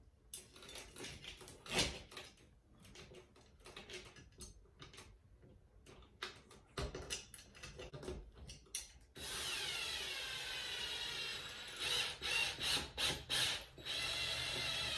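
Porter-Cable cordless drill driving a mounting screw into a ceiling fan's base plate. Small clicks and taps of the screw and plate being handled come first; about nine seconds in the drill motor starts with a whine that dips in pitch as it loads up, then a run of loud clicks, then the motor runs again near the end.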